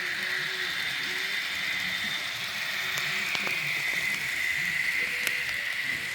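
N-scale Kato model trains running on the layout: a steady whir from the small locomotive motors and wheels on the track, with a few sharp clicks.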